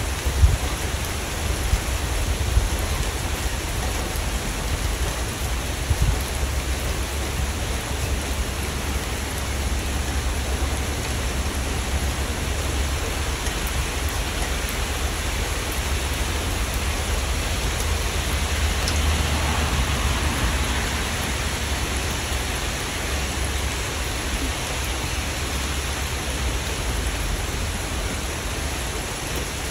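Steady rain falling, an even hiss with a deep low rumble beneath it. A few sharp drop hits stand out in the first six seconds, and the hiss swells for a few seconds about twenty seconds in.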